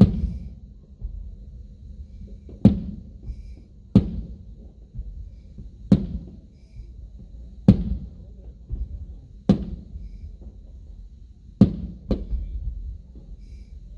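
Aerial firework shells bursting: a series of about eight sharp booms, each with a low trailing rumble, coming roughly every two seconds, with two close together near the end.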